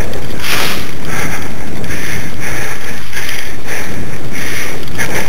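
Loud wind buffeting on the microphone and the rattle of a dog-drawn dryland rig rolling fast over grass, with a swish repeating about twice a second.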